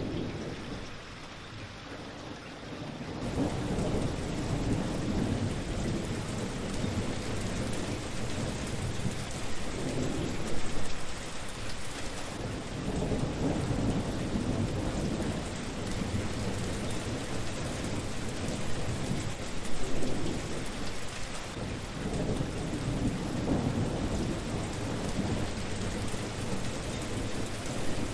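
Steady rain falling, with low rumbles of thunder that swell and fade every few seconds. The sound grows louder about three seconds in.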